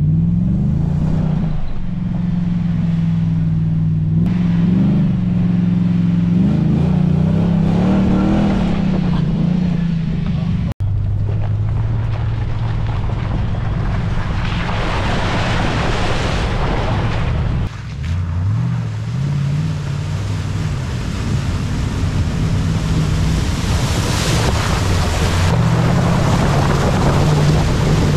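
Toyota LandCruiser 100 Series 4WD engine running while driving a track, its pitch rising and falling with the revs and gear changes, over tyre and wind noise. The sound cuts out for an instant about eleven seconds in, and the revs climb again after a break near eighteen seconds.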